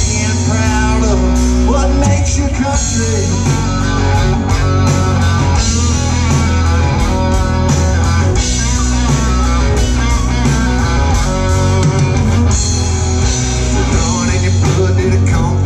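Live country-rock band playing through a PA: strummed acoustic and electric guitars over a heavy low end, with a steady beat.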